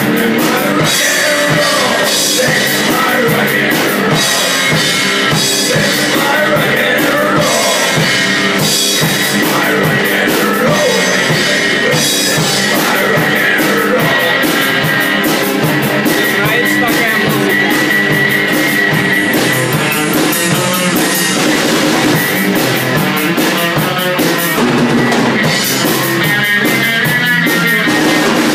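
Live rock band playing loud, with a driving drum kit and guitar.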